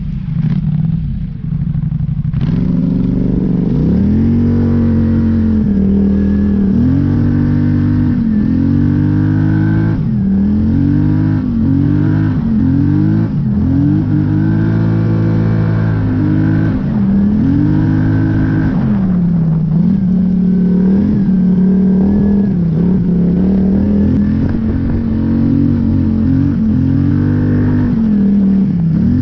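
Polaris Scrambler 850 ATV's parallel-twin engine running hard, revving up and easing off over and over as the throttle is worked. It is lower for the first two seconds, then climbs and keeps surging every second or two.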